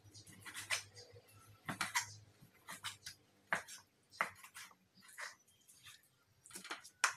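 Kitchen knife knocking on a wooden cutting board while raw chicken breast is cut off the bone: a series of short, irregular knocks, roughly one a second.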